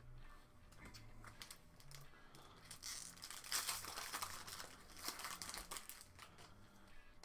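A foil trading-card booster pack wrapper crinkling as it is opened and handled, in bursts loudest about three and a half seconds in and again about five seconds in.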